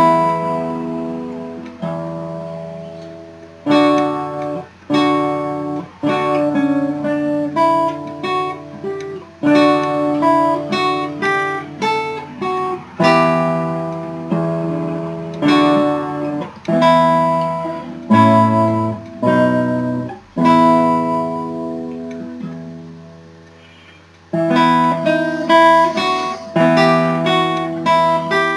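Solo nylon-string classical guitar playing a Renaissance lute piece, plucked melody notes over chords. About twenty seconds in, a chord is left to ring and fade for several seconds before the playing resumes.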